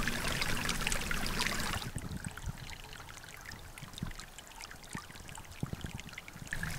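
Shallow mountain creek flowing and trickling over rocks. It is louder at first and drops to a quieter trickle with small splashes about two seconds in.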